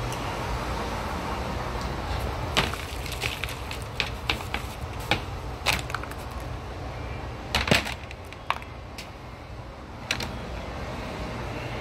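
Handling noise from a phone camera and items on a plastic food tray and tabletop: scattered sharp clicks and knocks, the loudest about three-quarters of the way through, over a steady low background hum.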